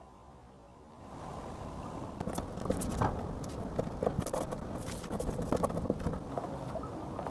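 Metal spoon scraping and crushing match-head powder on paper laid on a table: a run of short scratches and clicks, starting about a second in.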